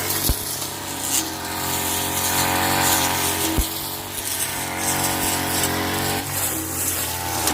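An engine running steadily, its pitch shifting slightly near the end, with two short low thumps about a third of a second in and about three and a half seconds in.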